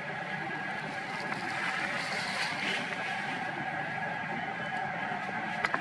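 Steady outdoor background noise with a faint continuous hum, broken by a single sharp click near the end.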